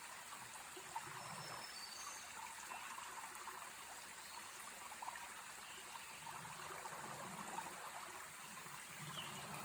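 Faint outdoor ambience: a steady hiss like a small stream trickling, with a few short, faint high chirps about two seconds in.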